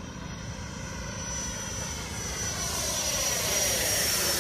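Radio-controlled F-16 jet's 1450KV electric ducted fan whining in flight. The jet grows louder about halfway through as it comes close, and its tones slide down in pitch as it passes.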